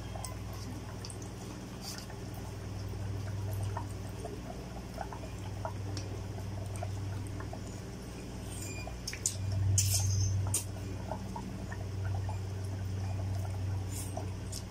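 A person eating cup noodles with chopsticks: wet slurping and chewing with small clicks, loudest about ten seconds in. A steady low hum runs underneath.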